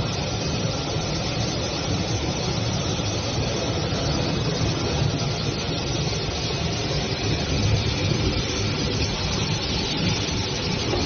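AccTek AKZ1625 CNC cutting machine running during its factory test, making a steady mechanical noise with no distinct beat or change in pitch.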